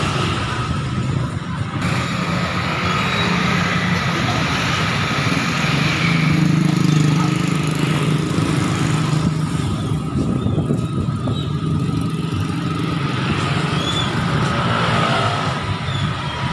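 Busy road traffic: cars and motorcycles passing close by, engines running and tyres on the road in a steady rumble that swells loudest about seven seconds in.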